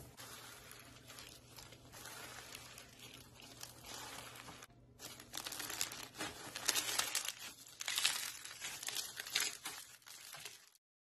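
Blue slime kneaded and squeezed with small white foam beads, the beads crackling and popping in dense little clicks. There is a brief break about five seconds in, then louder, denser crackling, and the sound cuts off just before the end.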